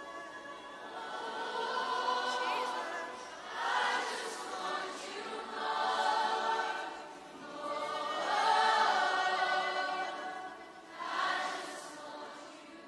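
Many voices singing together in long, held phrases over soft music, swelling and easing every two to three seconds and fading away near the end.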